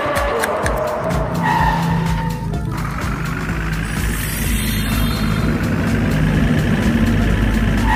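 Car engine sound effect, its pitch slowly rising through the middle, over background music.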